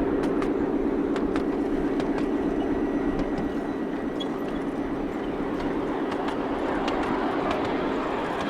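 Miniature railway train running along its narrow track: a steady hum with scattered light clicks from the wheels on the rails.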